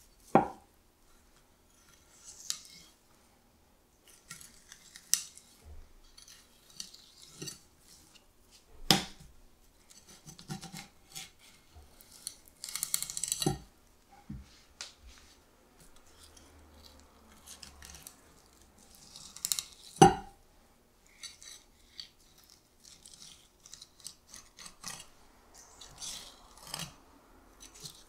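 Kitchen knife filleting a striped beakfish on a cutting board: scattered scraping and slicing sounds along the bones, broken by a few sharp knocks of the knife or fish against the board. The loudest knocks come just after the start and about two-thirds of the way through.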